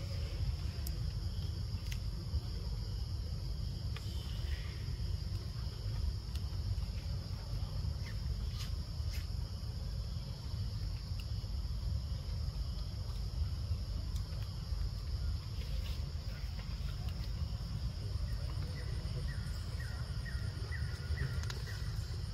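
Steady high-pitched insect drone over a constant low rumble, with a few faint clicks and a short run of small chirps near the end.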